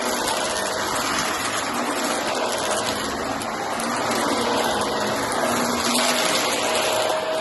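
Shark vacuum cleaner running steadily, its motor and airflow making a continuous rushing noise with a faint steady hum.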